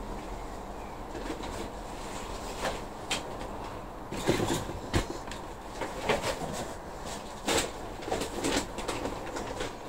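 Potting compost being handled and pressed into plastic tubs by gloved hands: rustling, with scattered sharp knocks of plastic that come thickest in the second half.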